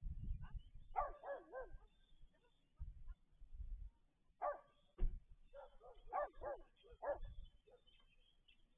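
A dog barking in short bouts: a few quick barks about a second in, then another run of barks from about four and a half to seven seconds in, over a low rumble that comes and goes.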